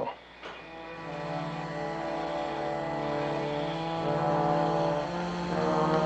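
Background score: a sustained orchestral chord swelling in, held steady, then moving to a new chord about five seconds in.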